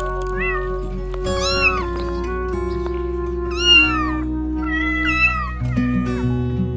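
A cat meowing several times, each meow rising and then falling in pitch, over steady background music; the loudest meow comes about four seconds in.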